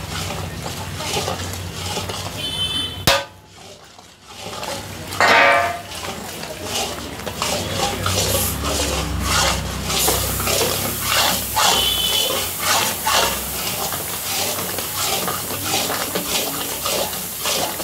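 Metal spatula scraping and stirring a thick, bubbling mysore pak mixture around a metal kadai, in repeated strokes about two a second. A sharp click about three seconds in is followed by a short lull.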